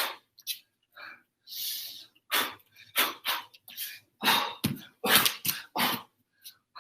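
Short, sharp huffs of breath, coming irregularly a few times a second with some longer breathy hisses between them.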